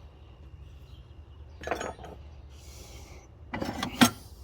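Small metal hand tools clinking and clattering as they are handled and set down, with a brief rubbing scrape in the middle and a sharp clink a little before the end, the loudest.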